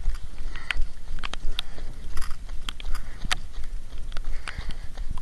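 Running footsteps on wet pavement, a short knock about two or three times a second, over a low wind rumble on the moving camera's microphone.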